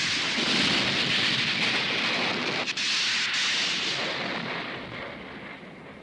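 Cartoon blast sound effect: a sudden loud rushing noise that dies away over the last couple of seconds.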